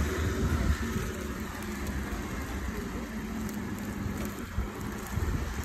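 Street traffic heard from a moving bicycle: a motor vehicle's engine hum fades out within the first second, leaving a steady rushing street noise.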